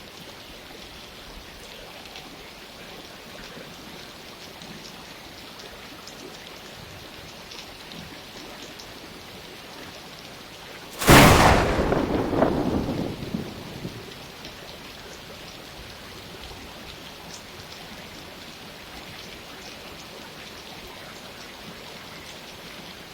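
Steady rain falling, with scattered drop ticks. About halfway through, a single sharp thunderclap cracks loudly and rumbles away over about three seconds.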